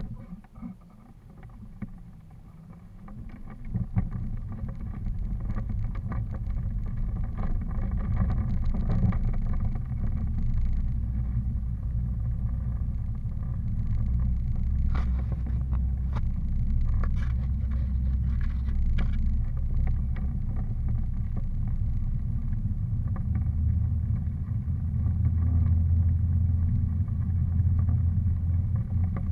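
Steady low rumble of travel noise from a camera moving along a street: quieter for the first few seconds, then building and holding steady, with a few faint clicks partway through.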